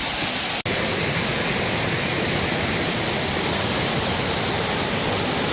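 Waterfall rushing steadily, a loud even roar of falling water close by. The sound drops out for an instant about half a second in.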